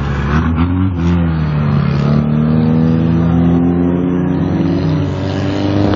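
A motor vehicle's engine running and accelerating, its pitch rising slowly over several seconds.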